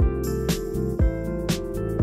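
Background music with a steady beat: regular drum hits under sustained instrumental notes.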